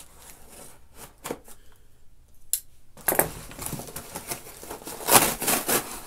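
Paper and cardboard packing being handled. A few light clicks and knocks come first; from about three seconds in there is a run of crinkling and rustling, loudest about five seconds in.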